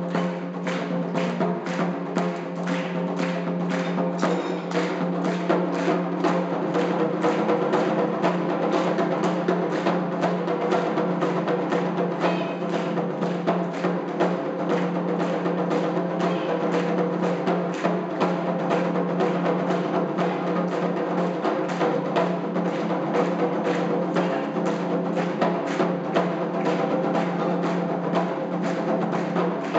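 Taiko drums played in a rapid, driving rhythm of repeated strikes, as an ensemble piece.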